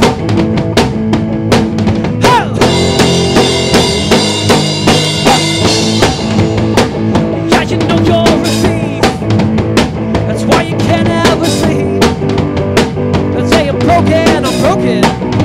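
Garage-rock band playing an instrumental passage with no singing: drum kit keeping a steady beat with snare and bass drum, under guitars and bass. Cymbal or guitar wash thickens the sound for a few seconds near the start.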